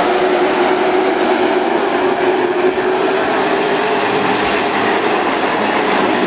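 A field of race cars running at speed around the short track, blending into a loud, steady engine drone with a held pitch.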